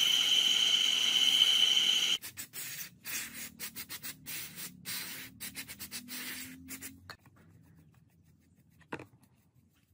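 A wire wheel on a bench motor spinning with a steady high whine as a carburetor body is held against it, stopping abruptly about two seconds in. Then an aerosol spray can hisses in a string of short bursts for about five seconds, followed by faint brushing with one click near the end.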